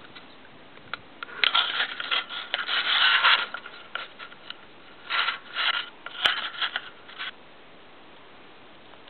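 Rubbing and scraping right against the camera's microphone, in two irregular stretches of scratchy noise, with a single sharp click a little after six seconds in.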